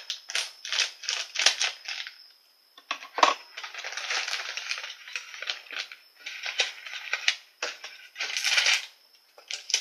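Plastic packaging of a Japanese candy kit crackling and rustling as it is handled and opened, in irregular runs of crackles with a longer continuous rustle a few seconds in.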